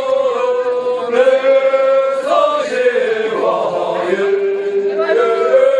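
A group of men singing together in long, drawn-out, chant-like notes that glide from one pitch to the next.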